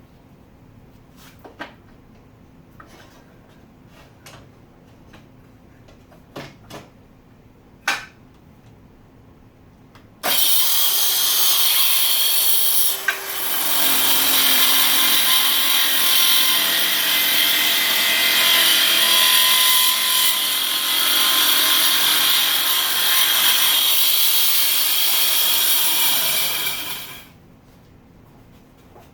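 Black & Decker Matrix circular saw cutting plywood along a crosscut jig: it starts abruptly about a third of the way in, runs loud and steady for about seventeen seconds with one brief dip early on, and stops near the end. Before the cut, a few light clicks and knocks.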